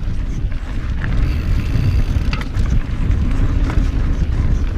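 Wind buffeting the microphone over the low, steady rumble of a mountain bike rolling fast down rough dirt trail, with a few sharp rattles from the bike.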